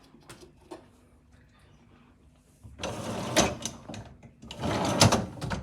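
Hard objects being handled: two bouts of clattering and scraping, each about a second long, starting about three seconds in, with sharp clicks and knocks among them.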